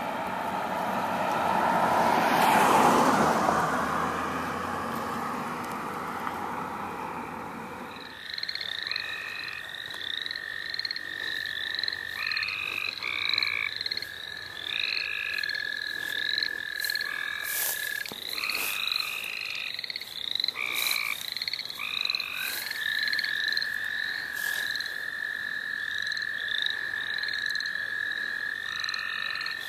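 A loud spring night chorus of frogs and toads: a long steady trill that breaks off and starts again, over a fast row of short rising peeps and scattered short trills. It comes in abruptly about eight seconds in. Before it there is only a broad rushing noise that swells and fades.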